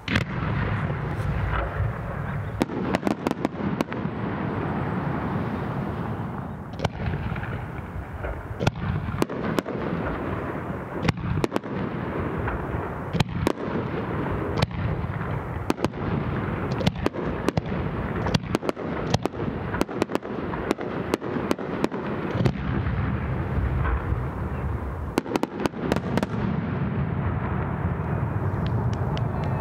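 Aerial firework shells bursting in quick succession: dozens of sharp bangs over a continuous din of overlapping bursts and their echoes.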